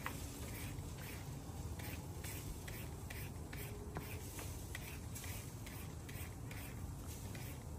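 A hand shredder scraping green mango into strips, in quick, uneven strokes about two or three a second.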